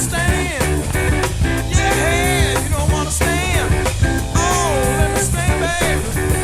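Background rock music with a steady drum beat and melody lines that slide up and down in pitch.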